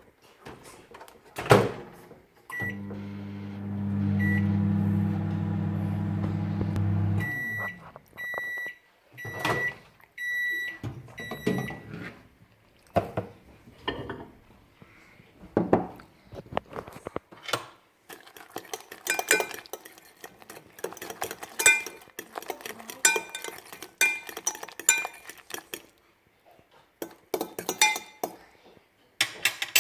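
Microwave oven: a keypad beep, then it runs with a steady hum for about five seconds and stops, followed by a string of end-of-cycle beeps about one a second. Afterwards a door click and scattered clinks of a utensil against a dish.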